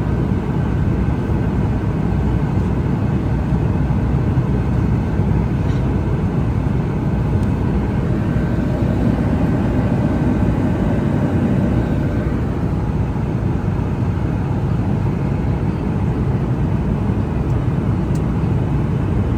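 Steady cabin noise of a Boeing 737 MAX 8-200 airliner in flight: a constant rumble of engines and rushing air.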